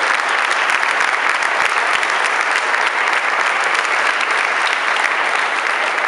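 Audience applauding: many hands clapping in a dense, steady round of applause.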